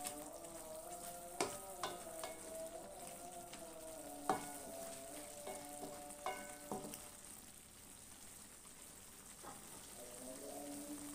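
A spatula knocks and scrapes against an aluminium wok about a dozen times in the first seven seconds while stirring a thick simmering sauce, which sizzles faintly throughout. Soft sustained tones of background music run underneath.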